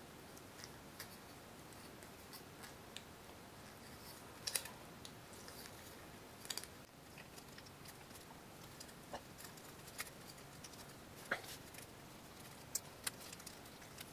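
Faint scattered clicks and light taps of small parts being handled: rubber anti-vibration dampers being pushed into a fiberglass quadcopter frame plate, the plate knocking lightly as it is turned over.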